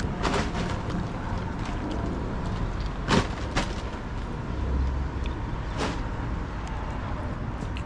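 Steady low rumble of street traffic, with a few sharp clicks or knocks close by, the loudest about three seconds in.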